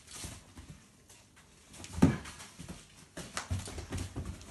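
Two dogs playing rough: paws and bodies thudding and scuffling on carpet and a leather sofa. There is one loud thump about two seconds in, then a quick run of thuds near the end.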